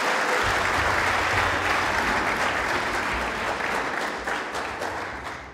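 Congregation applauding in a hall, a dense steady clapping that dies down near the end.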